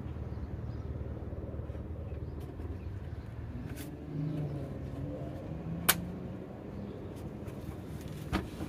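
Steady low background rumble, like distant vehicle noise, with a single sharp click about six seconds in.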